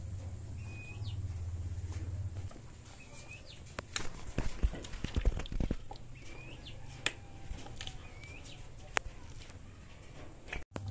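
A calf suckling at a cow's udder, with a cluster of knocks and thumps around the middle. Small birds chirp briefly several times over a low steady hum that fades after the first couple of seconds.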